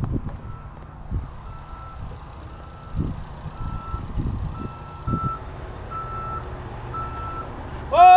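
A construction vehicle's reverse alarm beeping steadily, a little under once a second, over a low engine rumble and a few knocks. Near the end comes a short, loud horn-like blast that rises and falls in pitch.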